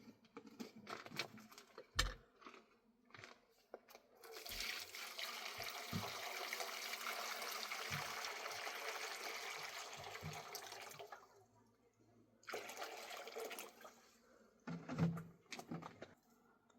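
Water rushing steadily for about seven seconds and then cutting off, between scattered knocks and clatter; one sharp knock about two seconds in and a thump near the end.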